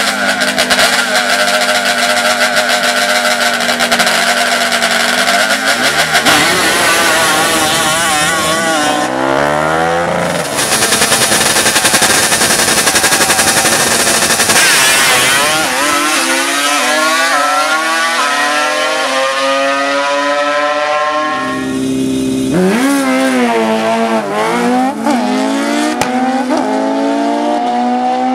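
Drag-racing engines running loud, first holding a steady note, then revving and accelerating with the pitch climbing in steps as they shift up through the gears. The pitch drops sharply and climbs again several times.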